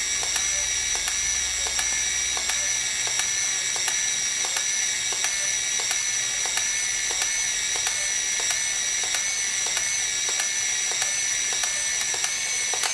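Pleomax 30DLX compact 35 mm film camera's motor rewinding the film on its own: a steady high-pitched motor whine with regular light clicks, about two to three a second.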